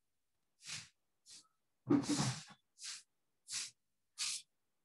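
A person's soft breathy sounds close to the microphone: six short puffs of breath, with the longest and loudest about two seconds in.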